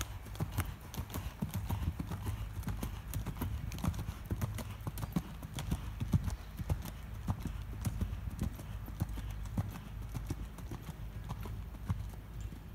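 Hoofbeats of a ridden American Saddlebred gelding on sand arena footing: a continuous run of hoof strikes over a low steady rumble.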